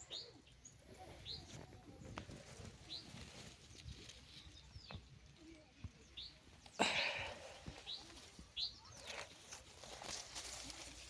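Small birds chirping: short, high, upward-sliding chirps repeated every second or so. About seven seconds in there is a louder brief rustle.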